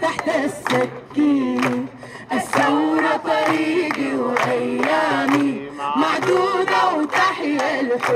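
A crowd of protesters singing a chant in Arabic, with a woman leading them through a microphone, and hands clapping along.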